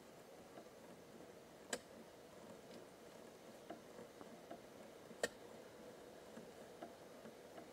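Faint, sparse sharp clicks from a hand plowing tool working the soil, with the two clearest about two seconds in and about five seconds in, and a few weaker ticks between them.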